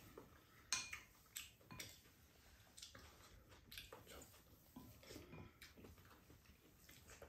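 Faint, scattered clinks of spoons and chopsticks against ceramic bowls as two people eat.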